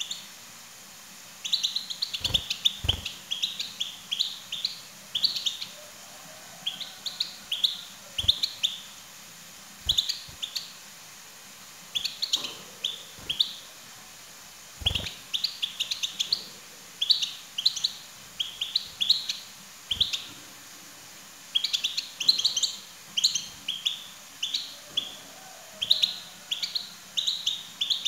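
European goldfinch singing: phrases of quick, high twittering notes about a second long, repeated with short pauses between them.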